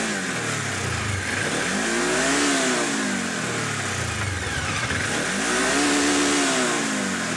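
Polaris RZR XP 900 engine with its stock exhaust, revved up and let back down twice. Each rev climbs smoothly to a peak and falls back to idle.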